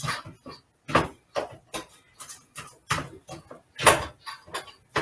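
Irregular knocks and clicks of kitchen handling, like utensils and dishes being set down and moved on a counter. They come every half second to a second, with the loudest a little before 4 s in.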